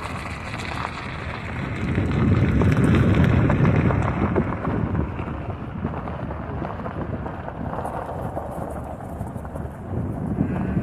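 Wind buffeting the microphone in an irregular low rumble, strongest from about two to four seconds in.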